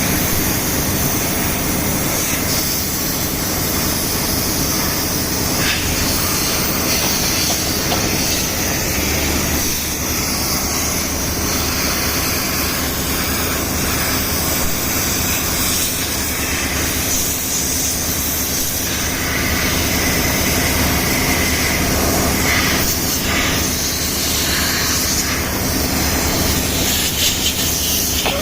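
Compressed air from an air compressor's nozzle blowing dust out of a generator: a steady high hiss that shifts a little as the jet moves, over the steady low hum of running machinery.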